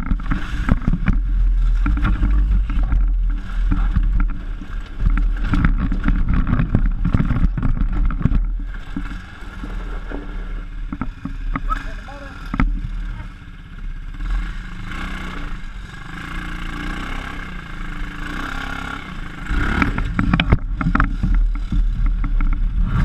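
Off-road PGO buggy's engine running while it drives over rough grass and a dirt trail, with frequent knocks and jolts from the bumpy ground. Quieter from about nine seconds in, louder again near the end.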